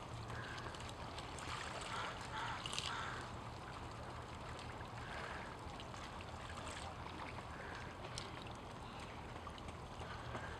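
Small waves lapping and trickling among shoreline rocks, with a low steady hum underneath and a few faint ticks.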